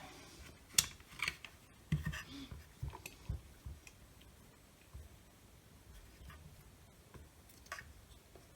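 Scattered small clicks, taps and light knocks of parts and tools being handled on a workbench, most of them in the first few seconds, then a few faint ticks.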